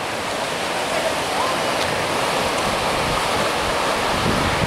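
High-tide surf washing up a boat ramp and spilling across the pavement: a steady rush of moving water.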